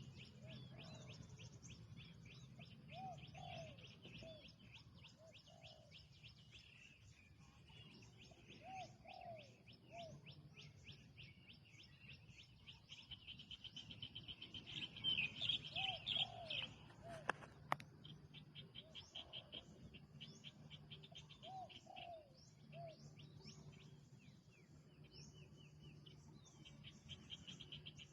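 Spotted dove cooing faintly in short phrases of two or three arched notes, four phrases spaced several seconds apart, over constant rapid high chirping of small birds.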